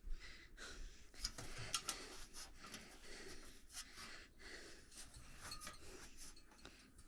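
Faint rustling and scraping of hands working parts into place, with scattered light clicks and taps.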